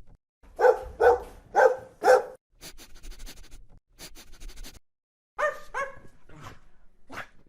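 A dog barking: four loud barks in quick succession, then after a pause two more barks and a couple of fainter ones near the end.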